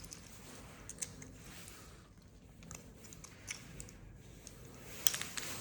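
Faint, scattered clicks and taps of an opened car key fob and its two CR2025 coin-cell batteries being handled, with a quick run of louder clicks near the end.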